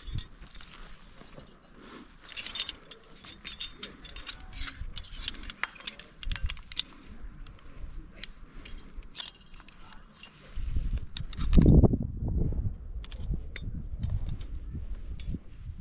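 Metal climbing gear (carabiners and other hardware on the harness) clinking and jangling in many light clicks while the rappel is set up and started. About two-thirds of the way through, a low rumbling rustle takes over, loudest in one heavy thump.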